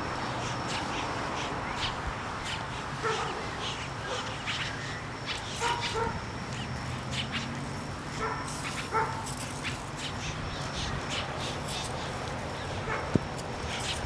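A dog barking intermittently, about half a dozen short barks, over a steady outdoor background with many sharp high-pitched ticks or chirps throughout.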